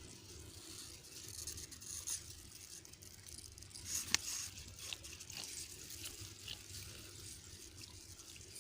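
Faint sloshing and trickling of shallow rice-paddy water, with a few small ticks and one sharp click about four seconds in.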